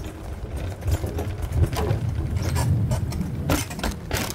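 Wheelchair rolling over porch boards and onto a concrete path: a low rumble from the wheels with irregular clicks and knocks.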